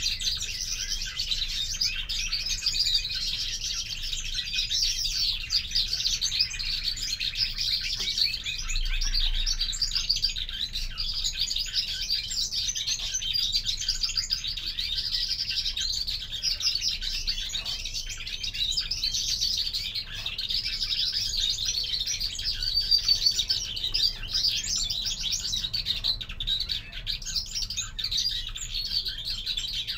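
Caged European greenfinches twittering and chirping continuously, a dense run of quick high chirps with no pause.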